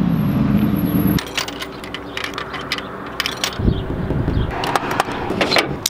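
Audi R8's engine running as the car rolls by, its pitch falling, cut off abruptly after about a second. Then a run of sharp clicks and clunks at a soda vending machine, with one heavy thud midway.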